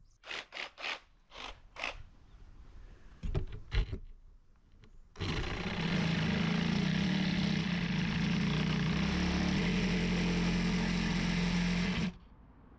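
Working a wooden board: several short scraping strokes and a couple of knocks. Then a power tool starts about five seconds in, runs steadily with a low hum for about seven seconds, and stops near the end.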